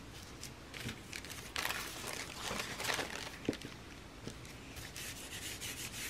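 Paintbrush stroking paint across a gelli plate, then thin paper laid over the plate and rubbed down by hand to pull a print: quiet, dry, scratchy rubbing of palm and fingers on paper.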